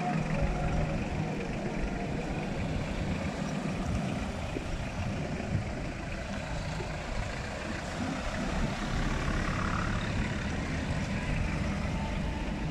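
Cars and a minibus driving slowly past one after another, their engines running in a steady low rumble.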